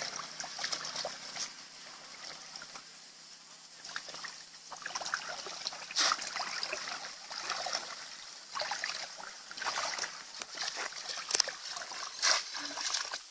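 Shallow water splashing and sloshing in irregular bursts. The sharpest splashes come about six seconds in and again near the end.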